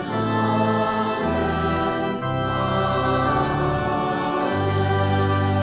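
Organ playing the postlude after the benediction: sustained full chords, with the bass note changing every second or so.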